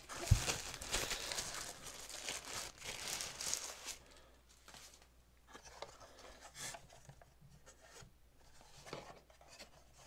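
Tissue paper crinkling and rustling as it is pulled off a plastic camera, with a low thump right at the start. After about four seconds it quiets to light handling noise, with a few soft clicks and taps of the plastic housing.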